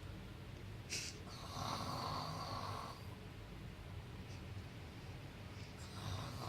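Snoring: two long, noisy snores, the first starting about a second in and lasting around two seconds, the second beginning near the end.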